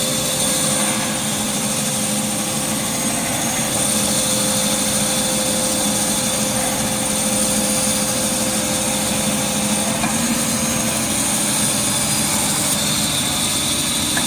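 Automatic wood band saw running steadily with its conveyor feeding, a constant machine noise with a steady high whine, as a wood core piece is trimmed.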